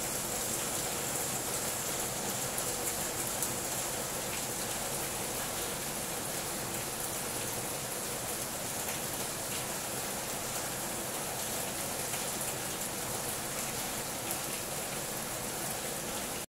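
Heavy rain falling on the leaves of garden trees: a steady hiss with faint scattered drop taps.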